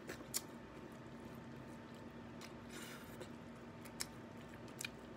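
Faint sounds of eating cooked blue crab by hand: a few sharp clicks of shell pieces being pulled apart, and a short wet sucking sound about two and a half seconds in as the meat is sucked from the shell.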